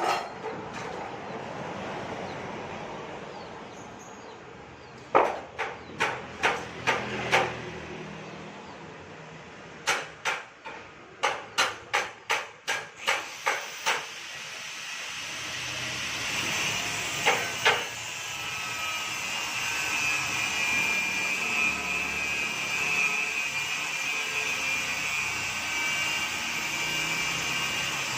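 Hammer blows on steel bars in two quick runs of knocks, then about halfway through a steady crackling hiss of an electric arc welder joining the iron bars.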